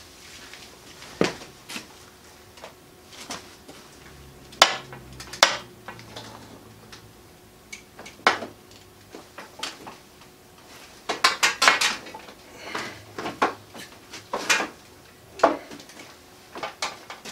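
Irregular metallic clanks and knocks as the CNC table's sub-frame is worked by hand onto its spring-loaded wheels, with a quick run of clanks about eleven seconds in.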